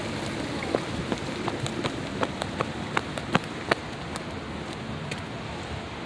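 A quick scatter of sharp taps, about a dozen in the first few seconds and then thinning out, from someone moving on pavement with a phone. They sit over a steady hiss of outdoor background noise.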